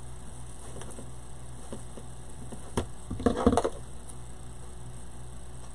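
Deco mesh being handled and tucked into a wreath frame: faint rustling and small clicks, with a louder burst of rustling about three seconds in, over a steady low electrical hum.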